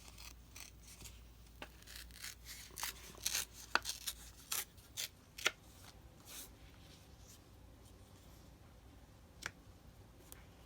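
Paper being handled during craft work: a run of crisp rustles and clicks over the first five or six seconds, then mostly quiet apart from a single click near the end.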